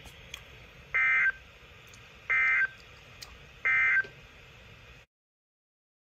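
Midland WR400 weather radio sounding the NOAA Weather Radio SAME end-of-message code: three short buzzy data bursts, evenly spaced over faint hiss. They mark the end of the broadcast alert.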